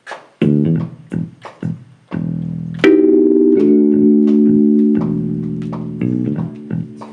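Guitar playing a quick run of plucked notes, then a full chord about three seconds in that rings for a couple of seconds, then a few more notes: the singers are being given their starting notes.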